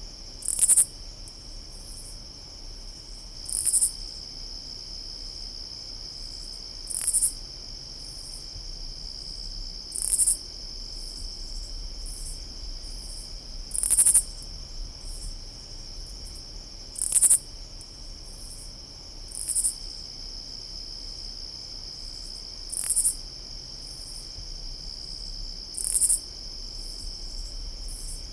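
A single katydid giving short, loud, high calls about every three seconds, nine or ten in all, over a steady, high-pitched trill from a chorus of crickets.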